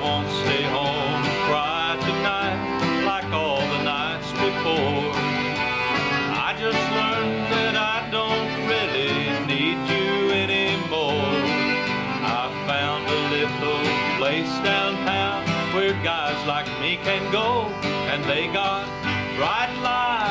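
Country tune played live on a picked acoustic guitar, with a lead melody whose notes slide up and down in pitch over it.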